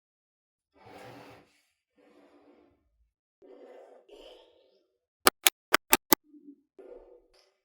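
Small magnetic balls being handled, with soft rubbing and shuffling sounds. About five seconds in, five sharp clicks follow in quick succession as balls snap onto one another.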